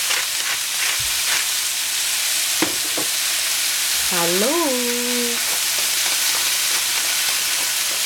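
Swiss chard sizzling in a frying pan: a steady hiss, with two light clicks about three seconds in.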